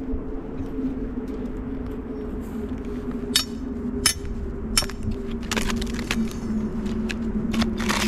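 Split firewood pieces knocking and clinking together as they are handled, a handful of sharp knocks from the middle on, over a steady low hum.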